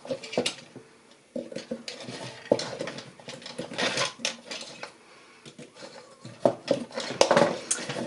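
Irregular metallic clicks, clinks and taps as a hand tool and heavy-gauge wire loops are worked against a piece of driftwood on a tabletop.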